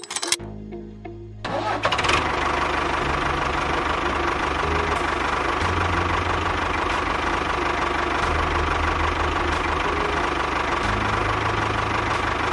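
Mini tractor model's small motor switched on about a second and a half in, then running steadily with a constant whine.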